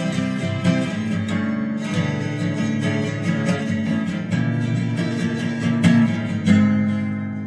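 Acoustic guitar playing plucked and strummed notes.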